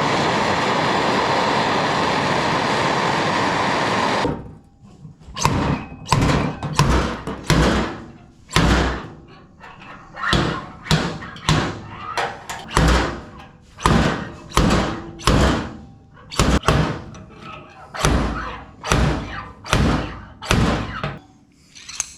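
A heating torch hisses steadily for about four seconds. Then a slide hammer pulls on studs welded to the steel body panel with about two dozen sharp knocks, roughly one a second or a little faster, pulling out a dent.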